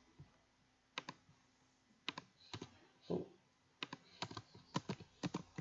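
Computer keyboard keystrokes: scattered single key clacks, a second or so apart at first and coming quicker in the last two seconds.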